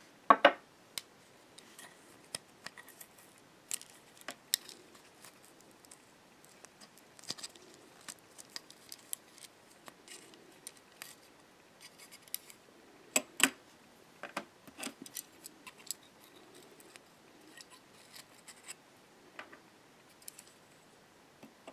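Small metal parts of a vintage car number plate lamp and its glass lens clicking, tapping and scraping as they are handled and set down on a wooden table. Scattered light clicks throughout, with louder clacks just after the start and about 13 seconds in.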